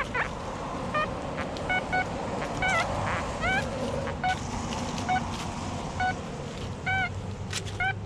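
XP Deus metal detector with an X35 coil giving a string of short, pitched beeps, some of them warbling in pitch, as the coil sweeps the ground. They are responses to buried iron, which this lower-frequency coil picks up more readily than a high-frequency coil.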